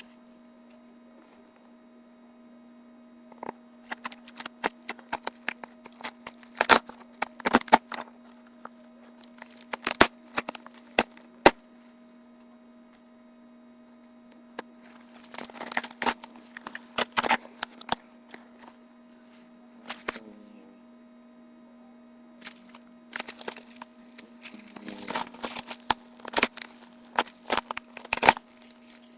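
A mailed package being opened by hand: bursts of crackling, tearing and sharp clicks of packaging, coming in clusters with short pauses between. Under them runs a steady electrical mains hum.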